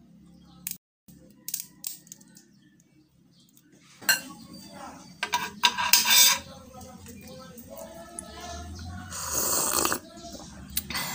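A loud slurp of coffee about nine seconds in, lasting about a second. Before it come a few sharp clicks and a burst of clatter as crab pieces and scissors on a plate are handled.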